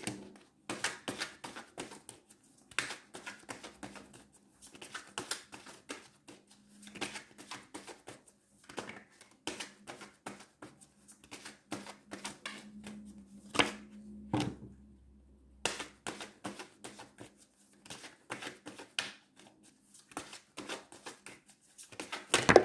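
A tarot deck being shuffled by hand: a long run of quick card flicks and light taps in uneven bursts, pausing briefly about two-thirds of the way through.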